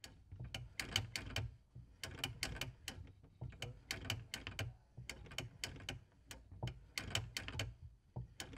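Mechanical clacking: runs of sharp clicks over low thuds, starting and stopping every second or so.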